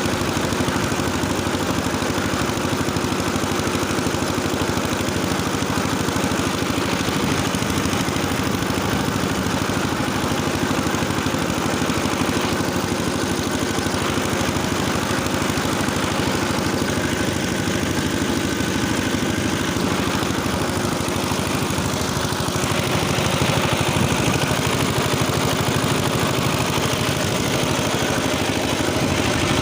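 Engine running steadily under load, driving a rotary tiller through ploughed soil.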